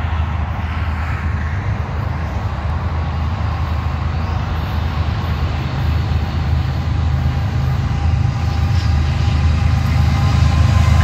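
Diesel freight locomotives of a KCS de Mexico train approaching, their engine rumble slowly growing louder as they draw near, over a steady low rumble that is already there before the train is close.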